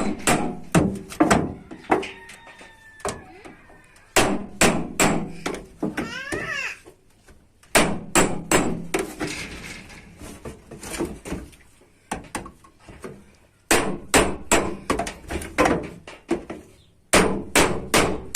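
Hand hammer beating sheet metal, in runs of quick blows broken by short pauses, the metal ringing faintly after some strikes.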